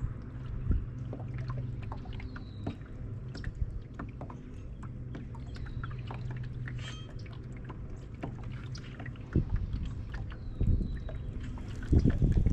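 A kayak's small electric trolling motor running with a low steady hum while the boat trolls on calm water, with light scattered clicks over it. A few louder low bumps come near the end.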